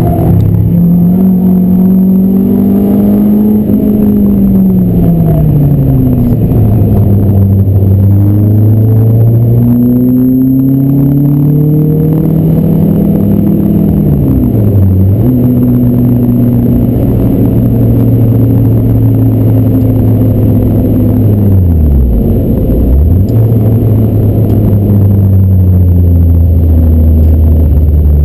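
Renault Clio 172 Phase 1's 2.0-litre four-cylinder engine at hard track pace, heard from inside the cabin: a loud engine note that climbs and falls with the revs, dipping sharply and recovering several times as it changes gear.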